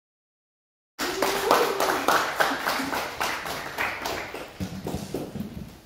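A small audience clapping, cutting in about a second in and dying away toward the end, with a voice or two over the claps.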